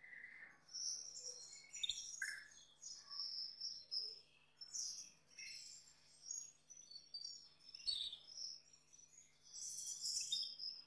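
Male Gloster canary singing: short phrases of high chirps, whistles and trills with brief gaps, the excited song of a male in breeding condition. A faint steady hum runs underneath.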